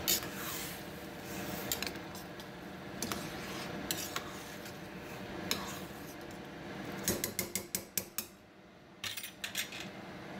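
Long metal slotted spoon stirring rice and vegetables in broth in a stainless steel pot, scraping and clinking against the metal now and then. About seven seconds in comes a quick run of about eight clinks, and a few more follow about nine seconds in.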